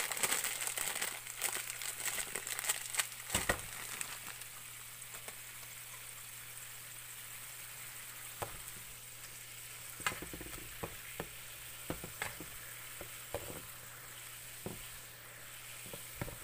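Water boiling hard in a shallow frying pan, a steady bubbling hiss, as a block of dried instant noodles goes in. Sharp clicks in the first few seconds and scattered single ticks later.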